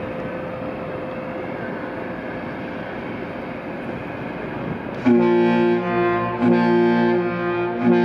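MV Coho's ship's horn sounding a chord of several pitches: two blasts of a little over a second each, starting about five seconds in, with a third beginning right at the end. Before the horn there is a steady rushing noise with a faint hum.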